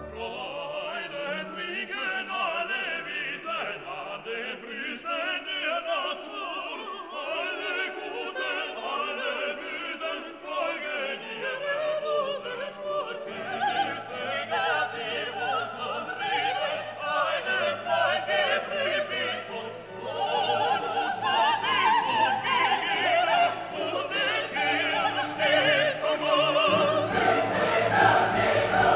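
Background classical music: operatic singing over an orchestra, with a deeper bass coming in about halfway through and filling out further near the end.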